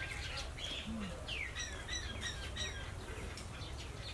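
Birds chirping: a falling call, then a quick run of short high chirps, over a steady low background rumble.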